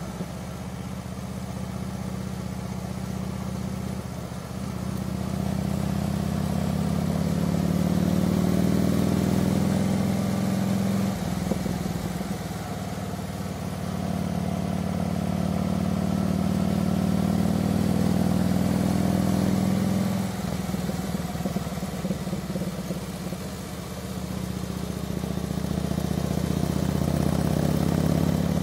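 Harley-Davidson touring motorcycle's V-twin engine pulling up a winding hill, heard from the rider's seat. The engine note builds as it accelerates, drops abruptly twice and builds again each time.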